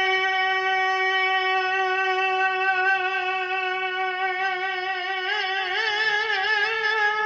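A man singing a naat holds one long note on a single pitch, wavering with vibrato over the last couple of seconds.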